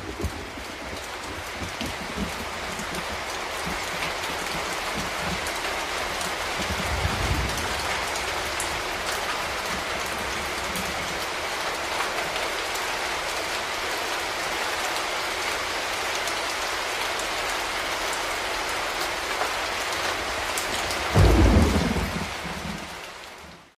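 Steady, heavy rain with rolling thunder: one rumble about seven seconds in and a louder one near the end. The rain fades out at the very end.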